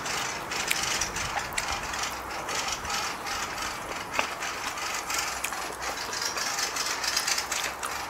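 Close-up eating sounds: crunchy chewing mixed with the crackle of crisp frilly lettuce leaves being torn and handled, a dense run of small clicks throughout.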